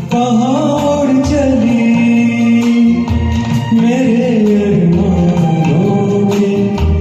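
Karaoke singing: a solo voice sings a sustained, gliding melody over a recorded backing track with percussion.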